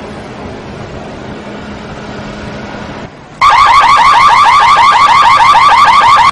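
A steady background hiss and rumble, then about three and a half seconds in a car alarm siren starts suddenly and loudly: a fast series of rising chirps, many a second, that cuts off abruptly near the end.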